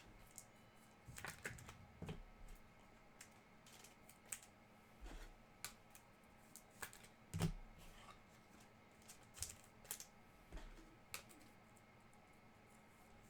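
Faint, irregular clicks and taps of trading cards being handled and set down on a table.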